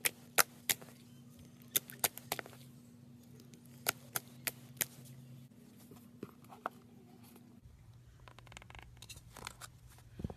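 Sharp, sticky clicks and pops of clear blue slime being pressed and poked with fingertips, about ten in the first five seconds, over a low steady hum. Later come softer scattered clicks and a short squish near the end, as peel-off face mask is squeezed from its plastic tube.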